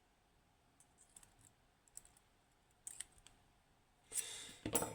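Small metal lock parts (pins, springs, tweezers) being handled during reassembly of a pin tumbler lock: scattered light clicks and taps, then a louder quick clatter of clicks about four seconds in.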